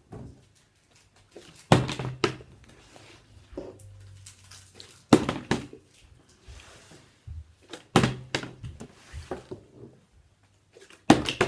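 Plastic water bottle being flipped and landing on a table: four hard thuds about three seconds apart, each followed by a smaller knock or clatter as it bounces or topples.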